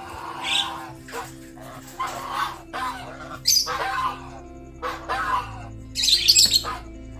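Goose calling in a string of short, irregular calls over background music with steady held notes.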